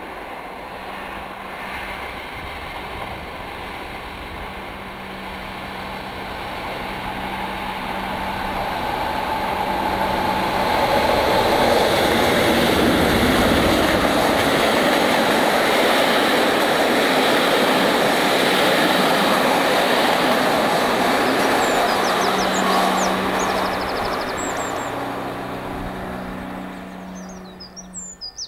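A Class 37 diesel locomotive's English Electric 12CSVT V12 engine working under power as it approaches and passes, the engine growl and train rumble building to their loudest about halfway through and then easing off as it draws away. Faint bird chirps come in near the end.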